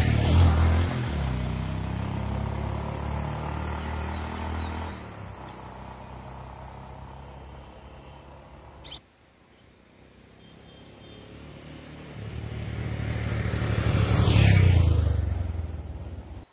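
Motor vehicles driving past: an engine hum fades away over the first half, cuts off abruptly about 9 seconds in, then a second vehicle approaches, passes close about 14 seconds in and fades off.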